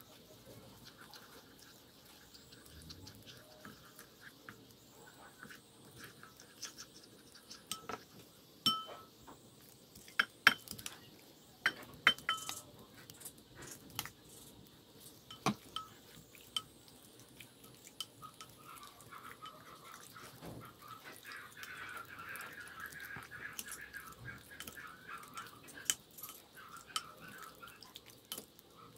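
A wooden spoon clinking and tapping against a glass mixing bowl, with a run of sharp knocks in the middle, then a longer stretch of wet stirring near the end as raw chicken pieces are worked into a thick chili-paste marinade.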